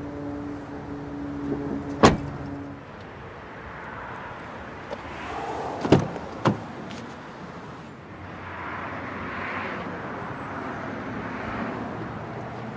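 A 2014 Jeep Grand Cherokee SRT8's rear car door is shut with one loud slam about two seconds in. A few seconds later the front door handle is pulled and the latch gives two sharp clicks, half a second apart, as the door opens.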